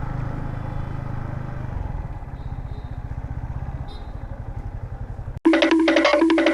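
Yamaha MT-15's single-cylinder engine running low and even, with a steady run of pulses. About five and a half seconds in it cuts off abruptly and music with a repeating percussive beat starts.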